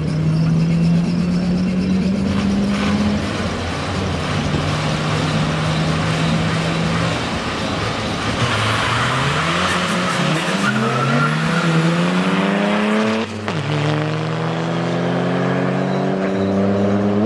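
Two drag-racing cars holding their engines at high revs at the start line, then launching and accelerating hard down the strip. The engine note climbs in pitch and drops at gear changes, about five seconds in from the launch and again near the end.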